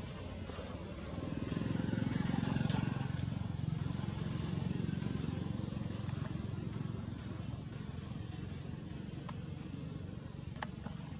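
Low engine rumble of a passing motor vehicle, swelling about a second and a half in and slowly fading. Two short, high, rising chirps come near the end.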